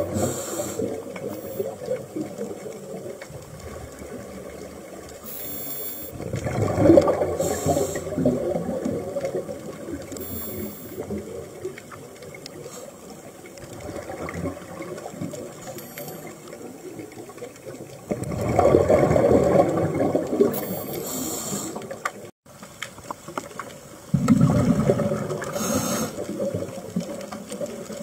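Scuba diver's exhaled bubbles rushing past underwater in bursts of two to three seconds, three times, over a steady low wash of water.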